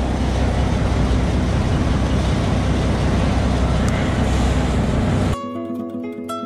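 Canal express boat's engine running loudly from close by, a steady deep drone with a noisy rush over it. About five seconds in it cuts off suddenly and acoustic guitar music takes over.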